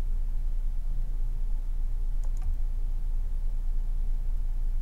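Steady low hum under two faint computer mouse clicks a little after two seconds in, made while a pipe is drawn between two nodes in the program.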